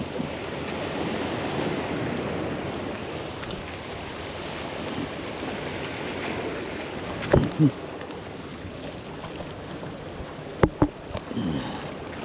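Sea washing against the rocks of a breakwater, a steady rush of water. Twice, about seven and ten and a half seconds in, a pair of sharp knocks stands out above it.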